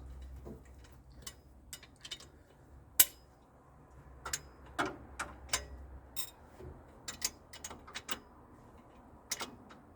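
Scattered sharp clicks of a socket ratchet working a cylinder head bolt, a few at a time at uneven intervals, with one louder click about three seconds in. A faint low hum stops about six seconds in.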